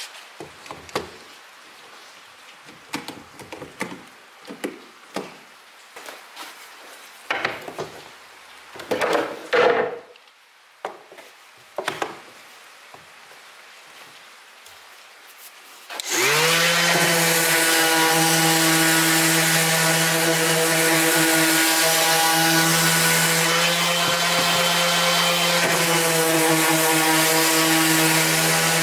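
Scattered clicks and knocks as one-handed bar clamps are squeezed and set on a wooden board. About halfway in, a cordless drill starts and runs steadily at one pitch for about twelve seconds, much louder than the clamping.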